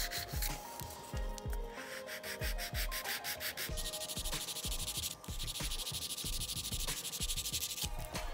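Coarse hand nail file rasping back and forth over the free edge of a sculpted acrylic nail in quick, rapid strokes, becoming denser about four seconds in. Background music with steady notes plays underneath.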